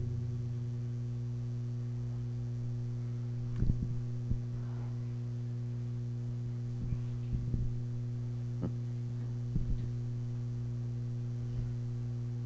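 Steady low electrical hum, with a few faint knocks scattered through it.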